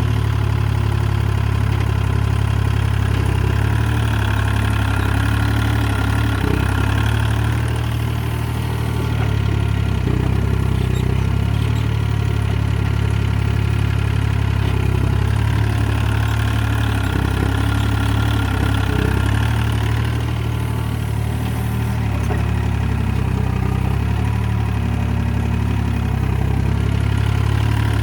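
Hitachi EX30 mini excavator's diesel engine running steadily as the machine works. A higher whine swells twice over the steady engine note, and the level dips slightly twice.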